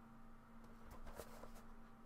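Near silence: room tone with a faint steady hum and a few faint light ticks from a cardboard figure box being turned in the hands.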